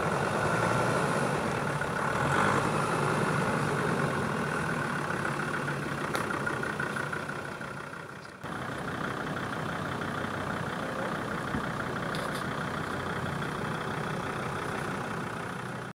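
Land Rover engine running at low, steady revs during an off-road trial. Just past halfway the sound fades slightly, then jumps abruptly to another stretch of steady engine running.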